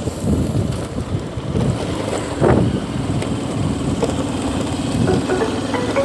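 Motorcycle engine running at low road speed, with wind buffeting the microphone.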